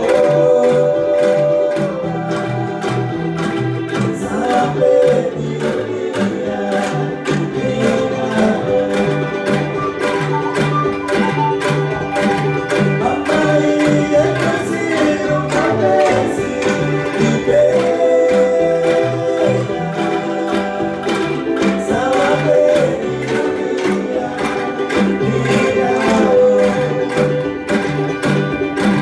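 Angklung ensemble playing a song: shaken bamboo tubes sound sustained melody notes and chords in a fast, even tremolo rattle, over stepping bass notes.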